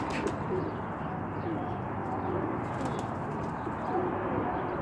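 Pigeons cooing, several short low coos overlapping one another.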